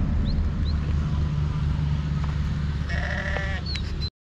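Jawari sheep herd, with one sheep giving a single wavering bleat about three seconds in over a steady low rumble. The sound cuts off suddenly just before the end.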